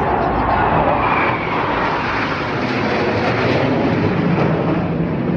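Jet noise from Black Eagles KAI T-50B jets flying past, a continuous loud rush that swells and rises in pitch during the first second or so.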